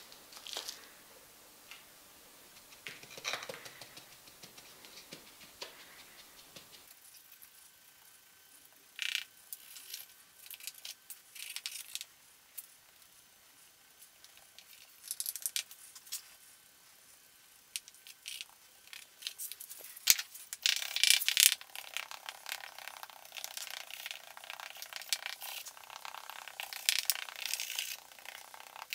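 Casting sand being rammed into a wooden mold box with a wooden stick: scattered dull taps and gritty scrapes, coming much thicker and quicker in the last third.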